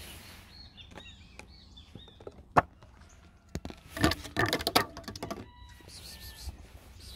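A sharp tap, then a quick flurry of knocks and scrapes against a vehicle's hard plastic body about four seconds in, as the cat climbs onto it close to the microphone.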